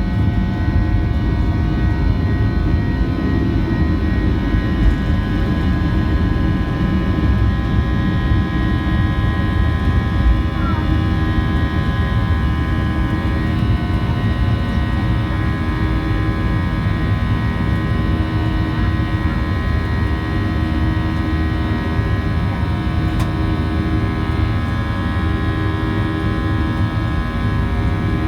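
Boeing 737-800's CFM56 jet engines heard from inside the passenger cabin, running at steady high power: loud steady low noise with several steady engine tones above it.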